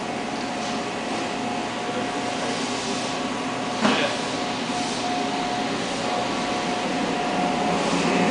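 Steady mechanical hum of workshop machinery with a faint steady tone running through it, and one sharp knock about four seconds in.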